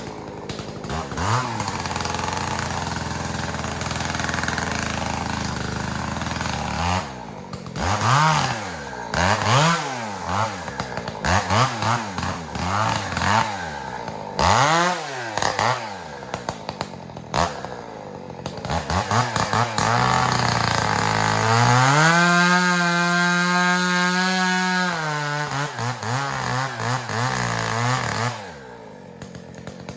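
Husqvarna 372 XP two-stroke chainsaw running at idle, then revved in a string of quick throttle blips that rise and fall. It is held at high revs for about four seconds, then drops back to idle near the end.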